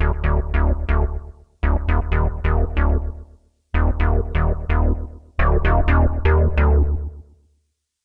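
Roland Cloud Juno-60 software synthesizer playing its resonant bass preset: four short runs of quick plucky bass notes, each note opening bright and quickly closing down, over a deep, heavy low end.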